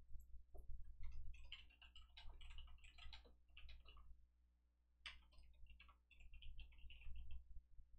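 Typing on a computer keyboard: two quick runs of keystrokes, starting about a second in and again about five seconds in, over a faint low rumble.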